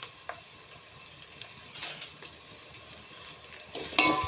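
Chopped onions sizzling in hot oil in a steel pot, a steady hiss with small scattered crackles. Near the end a spoon starts stirring them, scraping and clinking against the metal pot, and the sound gets louder.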